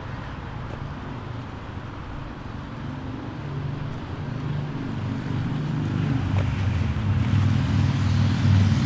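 A motor vehicle's engine running with a low steady note, growing louder from about three seconds in and loudest near the end.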